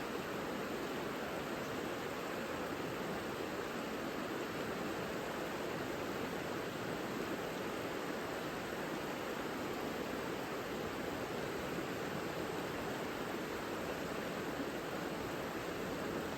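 Savica mountain river rushing steadily over its bed, an even, unbroken water noise.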